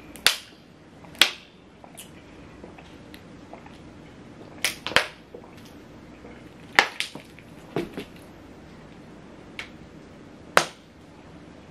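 Thin plastic water bottles crackling and popping as they are squeezed and drunk from: about a dozen sharp, irregular cracks, some in quick pairs.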